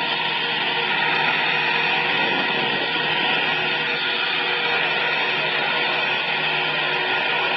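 Airbus A320 jet engines running at idle as the airliner taxis in to the gate: a steady whine of several held tones over a constant rushing noise.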